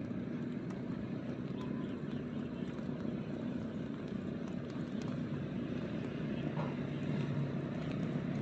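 A motor engine running steadily with a low drone, growing a little louder near the end.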